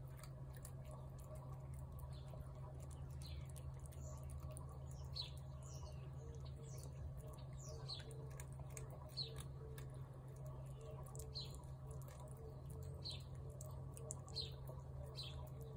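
A tabby cat eating wet food from a plate, with many small wet clicks and smacks of chewing. A small bird chirps repeatedly in the background, short falling high notes every second or two, which are the loudest sounds.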